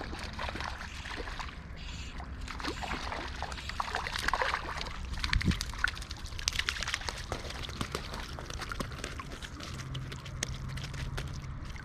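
River water sloshing and trickling over a steady low rush of current, with a busier run of splashy crackling in the middle.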